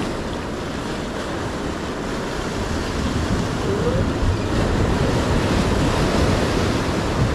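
Ocean surf breaking and washing over the rocks of a jetty, with wind buffeting the microphone. The wash grows a little louder about halfway through as a bigger wave comes in.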